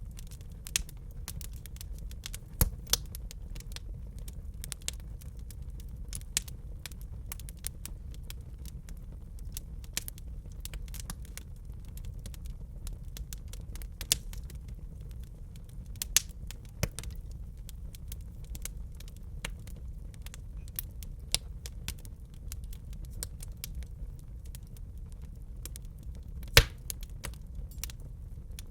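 Wood fire in a fireplace crackling: frequent sharp pops and snaps over a steady low rumble of the flames, with one louder pop near the end.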